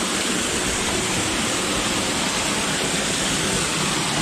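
Small waterfall pouring off a ledge of rock into a shallow pool, a steady, even rush of falling water close by.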